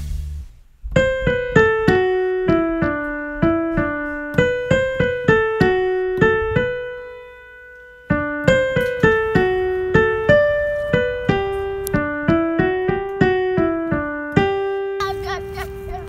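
Background music: a simple single-note melody played on a keyboard with a piano sound, in two phrases, each ending on a held note that fades out.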